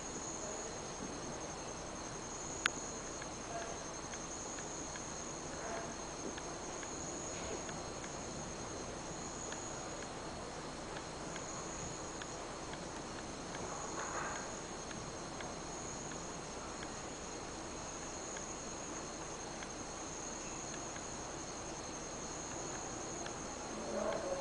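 Crickets or similar insects trilling in a steady, high-pitched continuous chorus, with one sharp click a little under three seconds in.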